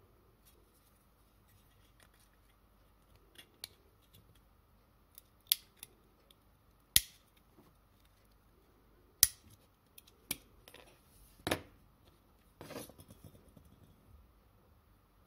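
Sharp metal clicks and clinks as a small screwdriver works at a tin-plate toy car body and its small metal parts are handled. About ten separate clicks come at irregular intervals, with a short scraping rattle near the end.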